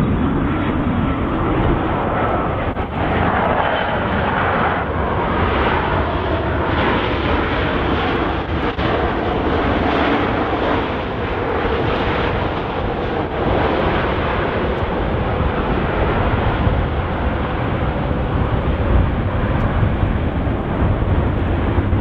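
Jet airliner's engines and airflow: a steady, loud rushing noise with a faint underlying hum, unchanging throughout.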